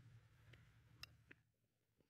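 Near silence: faint room tone with three small, faint clicks.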